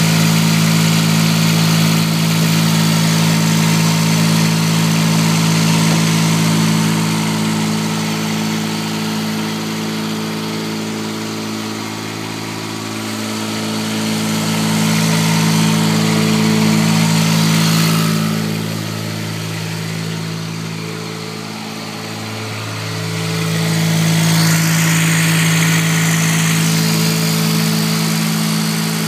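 Small diesel engine of a Bobcat 316 micro excavator running steadily. Its note dips and shifts twice, around the middle and again shortly after, before settling back.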